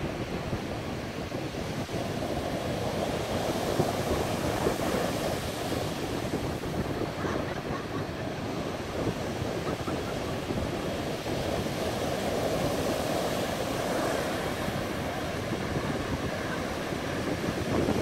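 Rough surf: white-water waves breaking and washing up a sandy beach in a steady rush that swells and eases.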